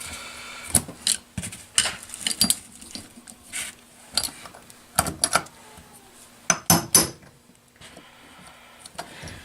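Hammer blows on a punch and screwdriver, driving an old crankshaft seal out of its housing on an outboard motor: a dozen or so irregular sharp metallic taps and clinks, the loudest cluster a little past the middle.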